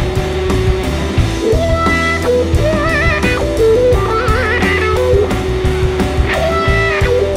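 Blues-rock band playing live: a semi-hollow electric guitar plays a lead with wide vibrato and string bends over a drum kit and low notes.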